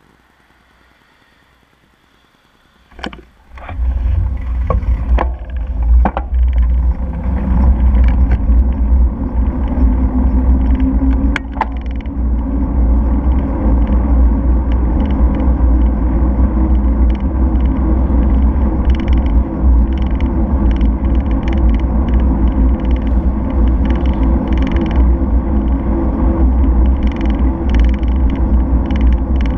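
Quiet at first, then a few clicks as the bicycle moves off, followed by a steady loud low rumble of wind buffeting the bike-mounted camera's microphone, with road noise, while riding.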